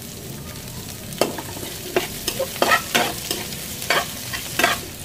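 Chopped garlic and sliced onion sizzling in hot oil in a metal frying pan, and from about a second in a metal spoon stirring them, with a series of sharp knocks and scrapes against the pan.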